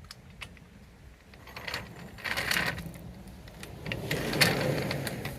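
Metal clatter of a car jack and jack stands being worked: a couple of sharp clicks, then two longer rattling, scraping stretches about two seconds and four seconds in.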